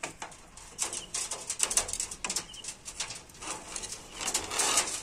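Hens pecking at mango on a wire-mesh cage floor: a run of quick taps and short scuffles, with some low hen calls.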